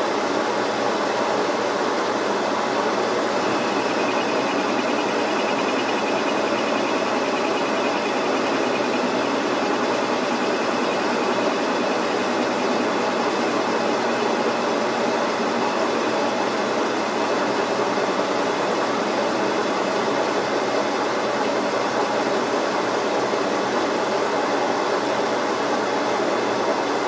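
Metal-turning lathe running steadily, its gears and motor giving an even mechanical hum of many steady tones while a pin is turned.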